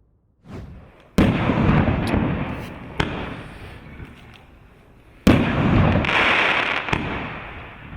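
A consumer fireworks cake (19 shots, 2-inch bore) firing its first shots, with sharp loud bursts about a second in and about five seconds in and a smaller bang in between. Each burst is followed by a few seconds of fading crackle and rumble.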